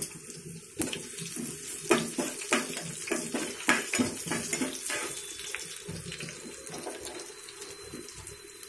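Mustard seeds, cumin, dried red chillies and garlic sizzling in hot oil in a nonstick pan for a tempering. The sizzle is steady, with sharp clicks and pops through the first half as the pan is stirred with a spoon.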